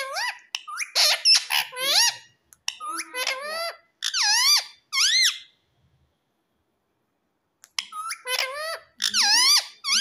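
Indian ringneck parakeet talking in a squeaky, high-pitched voice: a run of short phrases whose pitch sweeps up and down, a pause of about two seconds just past the middle, then more phrases near the end.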